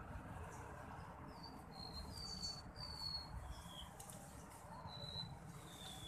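Small sir-sir songbirds, the adult pair at a nest, calling: a string of short, thin, high notes, each slurring slightly downward, about seven of them, starting about a second in.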